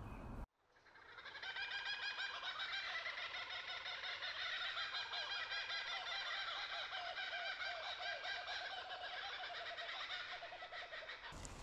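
Dense chorus of many birds chirping and calling, fading in about a second in and cutting off abruptly near the end.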